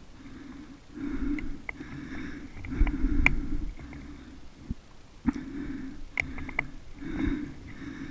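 A player breathing heavily and evenly close to the microphone, about one breath a second, with a few sharp clicks and rustles of gear in between.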